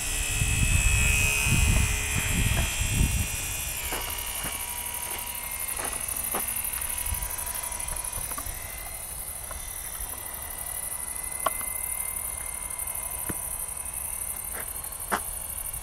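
Faint, steady buzzing whine of a HobbyZone Super Cub RC plane's electric motor and propeller in flight. Wind rumbles on the microphone for the first few seconds, and a couple of sharp clicks come later.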